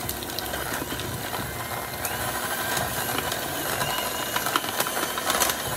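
KitchenAid electric hand mixer running with a steady motor whine, its beaters whipping chilled, firming tallow balm in a glass measuring cup and clicking now and then against the glass.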